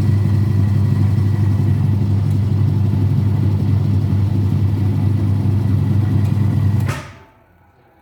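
Washing machine in its spin cycle: a loud, steady motor hum with drum noise, which stops abruptly with a click about seven seconds in.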